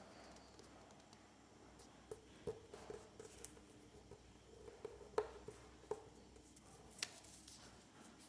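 Sheet of origami paper being folded and creased by hand: faint crinkles and light taps, a cluster of them from about two seconds in, the sharpest around the middle.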